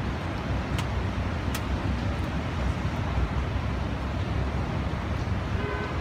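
Strong typhoon wind, a steady rumbling roar with the gusts buffeting the microphone. A brief horn-like tone sounds near the end.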